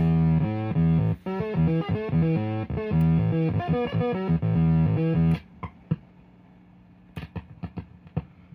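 A faulty Line 6 DL4 delay modeler pedal puts out choppy, stuttering pitched tones that break in and out, the sound of a unit with a broken input and output audio stage. The sound cuts off suddenly about five seconds in, leaving a few faint clicks.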